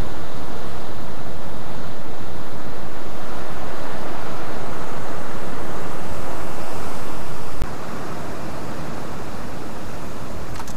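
Steady loud rush of sea surf and wind buffeting the microphone. A click comes about three-quarters of the way through, after which the rush carries on somewhat quieter.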